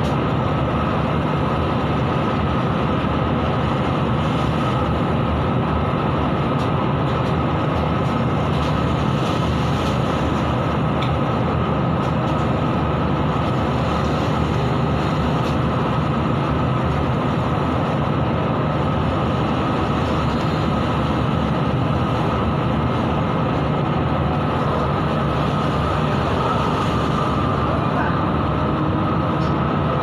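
Offshore tug's engines and deck machinery running at a steady drone with a constant hum, over the rush of heavy sea breaking around the stern.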